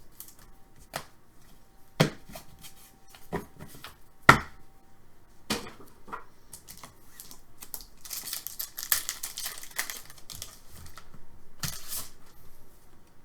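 Trading cards being handled: sharp clicks and taps as cards are flipped and set down one after another, then papery rustling of cards and wrappers about eight seconds in and again near the end.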